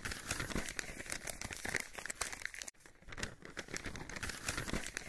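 Paper or parchment crinkling and rustling, the sound of a scroll being unrolled, in two stretches of dense crackling split by a brief gap about two and a half seconds in.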